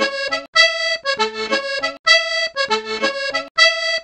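Background music: an upbeat tune of quick repeated chords in groups, with short breaks about every second and a half.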